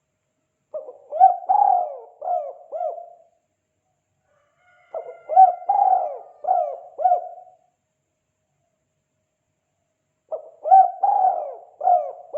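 Spotted dove (tekukur) cooing: three phrases of about five quick coos each, a few seconds apart. The last phrase runs on past the end.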